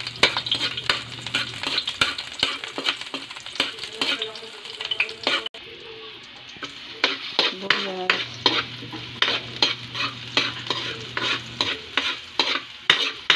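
Garlic and onion sizzling in hot oil in a steel wok, with a metal ladle scraping and clinking against the pan in quick repeated strokes as they are stirred.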